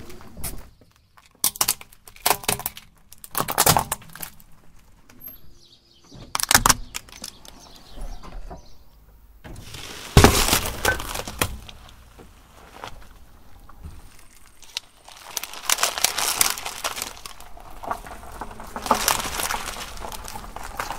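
A car tyre crushing things on asphalt: plastic cups of Orbeez water beads crack and crunch in a string of short, sharp bursts, with the loudest single burst about ten seconds in as the tyre bears down on a watermelon. Longer stretches of crackling plastic follow near the end.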